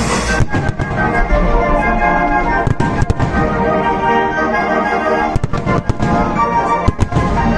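Fireworks going off in sharp bangs at irregular intervals, several of them in quick pairs, over loud music with held chords.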